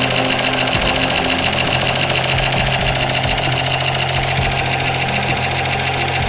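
Battery-operated toy machine gun playing its electronic rapid-fire sound effect through its small speaker, a steady fast rattle that runs without a break.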